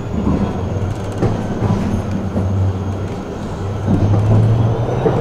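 Tram running on its rails, heard from inside the car: a steady low rumble with a few sharp clicks and a faint high whine. The rumble grows louder about four seconds in.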